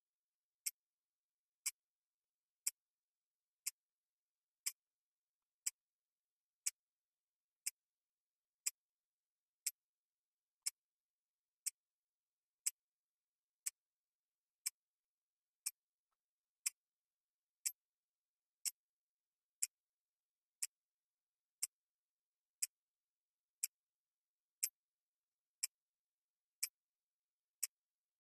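Countdown-timer clock-tick sound effect: one short, sharp, high tick every second, with silence between ticks. The ticks mark the seconds running down.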